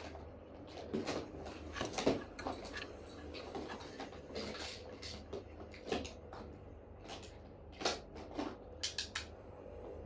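Irregular clicks, knocks and rattles inside a car jolting up a rough dirt road, over a low steady hum from the moving vehicle.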